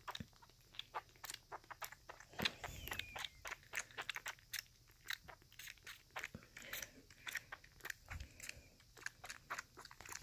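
Kitten suckling at a nursing bottle, slurping: a fast, irregular run of small clicks and smacks, several a second, from her mouth working the teat.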